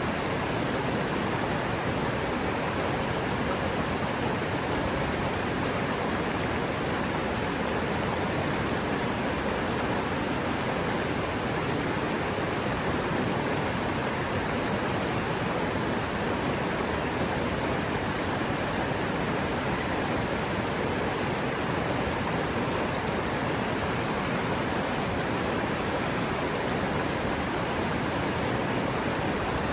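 River water running steadily over rocks: an even, unbroken rush of flowing water.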